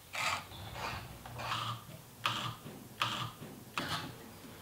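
Camphor laurel dowel being turned through a homemade wooden threading box, the cutter shaving out the screw thread: repeated scraping strokes about every three-quarters of a second, a few of them starting with a sharp click.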